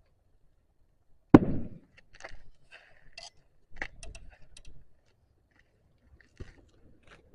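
A single sharp knock a little over a second in, followed by scattered light clicks and rustles and two softer knocks, like something being handled.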